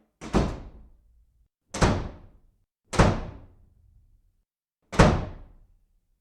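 Four heavy bangs, irregularly spaced over about five seconds, each dying away quickly; the first and last have a small lead-in knock just before the main hit.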